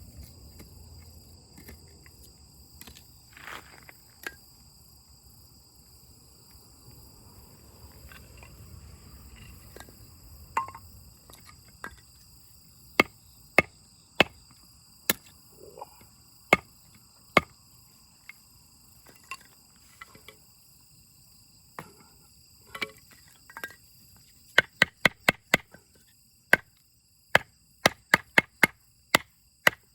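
Sharp knocks of firewood being chopped or split: a few scattered strikes, then about one a second from the middle, and a quick run of strikes near the end. A steady high insect trill runs underneath.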